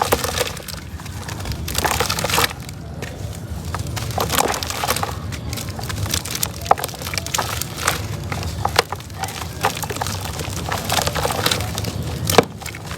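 Soft, slightly damp reused cement crumbling, a dense run of crunching and crackling with many small sharp cracks.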